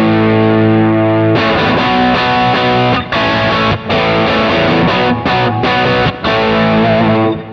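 Distorted electric guitar played through a Kemper Profiler running a Marshall amp profile with a 4x12 cabinet. It plays sustained rock chords, cut off briefly several times, and stops near the end. The graphic EQ's lowest (80 Hz, 'deep') band is turned up, giving a heavy low end like a Marshall's deep switch.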